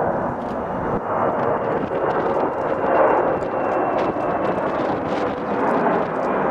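Jet engines of a large military transport plane flying low overhead: a loud, steady rushing noise with a faint high whine above it.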